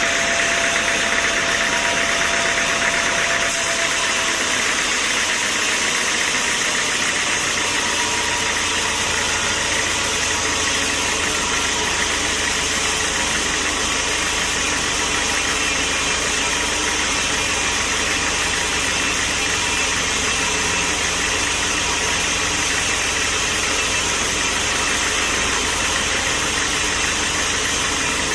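Sawmill machinery running steadily, a constant engine-like drone under a strong even hiss.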